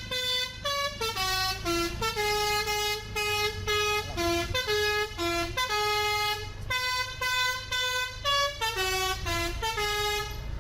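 Basuri telolet multi-tone horn on a bus playing a fast melody of short, clear horn notes that step between a few pitches, two to three notes a second. A steady low rumble runs underneath.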